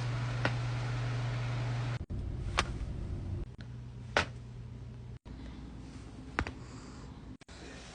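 Neck joints cracking during chiropractic adjustments: four separate sharp pops, roughly two seconds apart, over a low steady hum.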